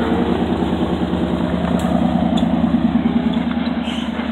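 Full-size off-road truck's engine running steadily at low revs as it crawls down a rocky trail, with a few light clicks over it.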